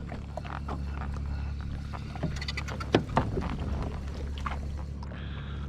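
Jet ski engine idling with a steady low hum, with scattered light clicks and taps over it, one sharper click about three seconds in.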